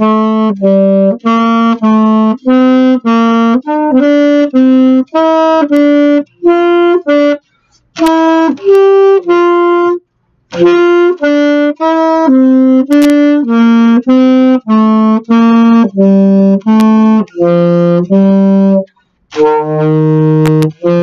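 Alto saxophone playing a practice scale pattern as separate tongued notes, about two a second. It climbs to its highest note about nine seconds in, breaks briefly for a breath, then works back down and ends on a longer held low note.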